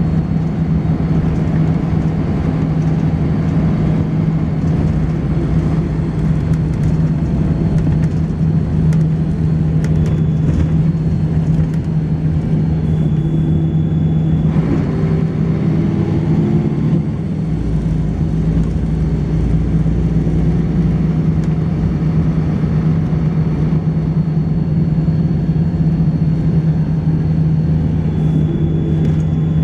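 Volvo B10BLE bus with a ZF gearbox running under way: a constant loud low drone with a thin high-pitched whine above it. The whine steps down in pitch briefly a few times. The whine is the strange noise this bus is known for.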